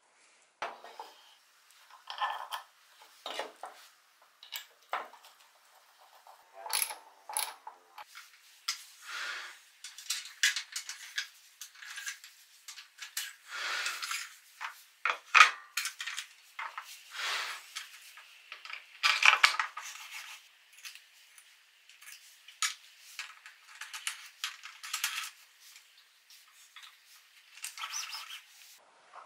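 Hands handling small workshop parts: scattered light metallic clicks and clinks, taps and short scrapes, with no steady machine sound.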